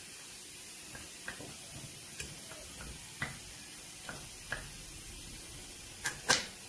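Irregular light metallic clicks and taps of pliers working at a damaged valve seat in an aluminium Suzuki Hayabusa cylinder head, the loudest pair near the end.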